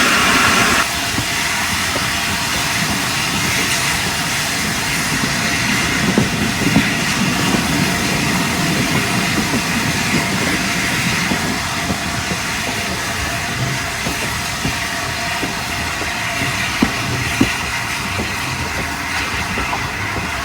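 Train hauled by the A1 steam locomotive 60163 Tornado running along the line: a steady running noise with occasional sharp clicks from the wheels. A high sound with several tones cuts off about a second in.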